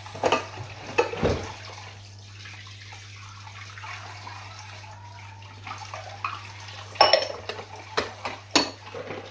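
Kitchen tap running steadily into the sink while bowls are rinsed and stacked, the bowls knocking together in sharp clinks: a few near the start and a cluster in the last few seconds, loudest about seven seconds in.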